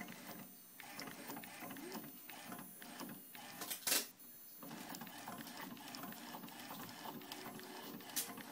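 T-shirt printing machine running with a steady mechanical clatter of small ticks. There is a short, loud hiss about four seconds in and a briefer one near the end.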